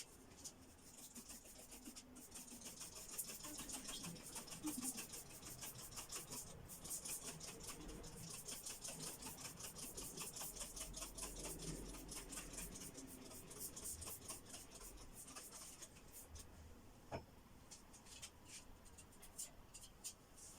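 Old wallpaper being scraped and picked off a wall: fast, faint scratching and rubbing that thins out near the end, with one sharper click.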